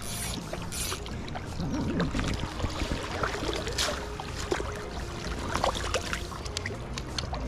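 River water rushing, with scattered splashes and small knocks as a hooked trout is fought and landed in the current.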